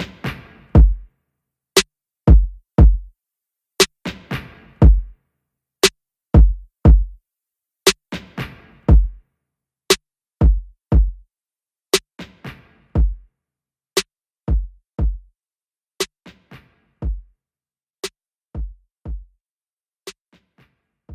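Electronic background music with a drum-machine beat of kick drum and percussion hits, fading out near the end.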